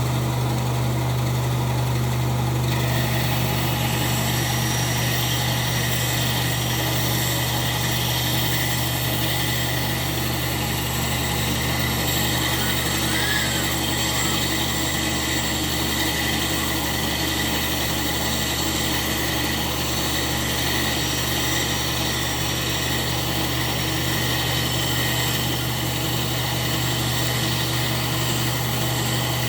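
Electric workshop machine running at a steady speed: a strong, even low hum with a hiss of higher noise above it.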